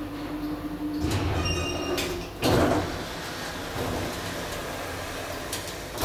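1985 Hopmann elevator reaching its floor: a steady hum stops about a second in, and a brief high whine follows. Then, about two and a half seconds in, the car's automatic doors start to open with a loud clunk and slide open.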